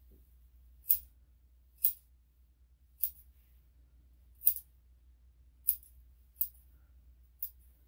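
Steel grooming scissors snipping the fur around a small dog's paw: seven short, sharp snips, roughly one a second.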